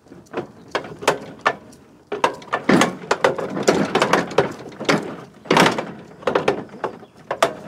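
Cub Cadet riding mower's deck lift lever being pulled up, the lever and deck linkage clanking and clicking in a run of irregular metal knocks as the cutting deck is raised.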